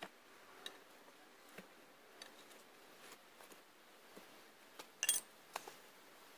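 Faint scattered clicks and taps, with one louder sharp clack about five seconds in.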